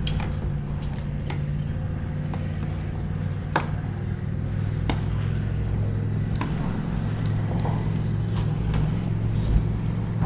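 Steady low hum of a boat motor, with a handful of short sharp clicks and knocks from gear handled on the boat deck.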